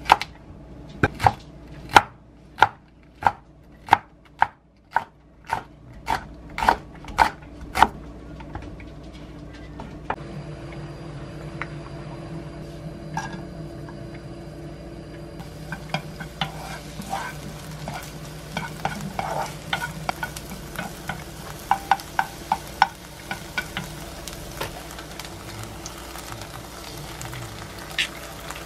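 A chef's knife chopping a Korean green onion (daepa) on a wooden cutting board, about a dozen even chops roughly half a second apart. After that, sliced green onion sizzles in olive oil in a non-stick frying pan, with scattered light taps of a utensil stirring it. Near the end there is a single sharp tap as an egg is cracked into the pan.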